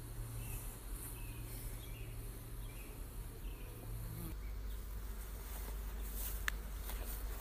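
Honey bees buzzing around their hives: a steady low hum, with a short sharp tick about six and a half seconds in.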